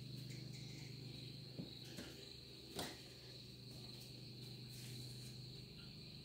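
Crickets trilling steadily at one high pitch, faint, over a low steady hum. A few soft knocks come through, the loudest about three seconds in.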